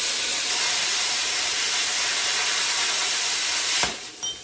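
Plasma cutter cutting steel plate, a steady loud hiss of arc and air that cuts off sharply near the end, followed by a light metallic clink.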